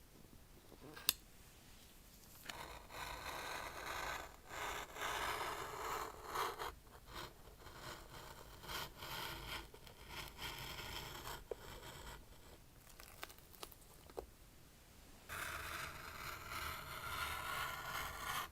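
Tablet box packaging being opened by hand: a sharp click about a second in, then repeated scraping, rustling and tearing of cardboard and wrapping.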